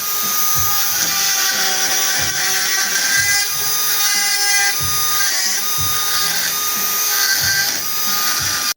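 An electric power tool running steadily with a high-pitched whine, over background music with a regular beat; the sound cuts off abruptly near the end.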